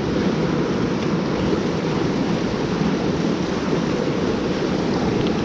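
Fast creek water rushing over rocks, a loud steady noise.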